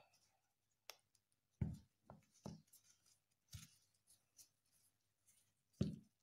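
A container holding wet cement mortar in a nylon stocking being shaken to settle the mix to the bottom: a handful of soft, dull knocks spread out, with faint scratching and rustling between them.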